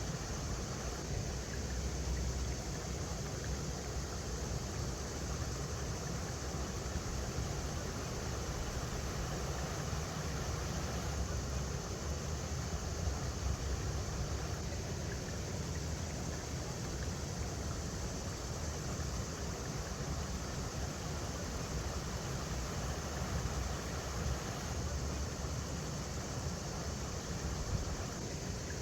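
A river flowing over rocks: a steady rush of water with a deep rumble underneath.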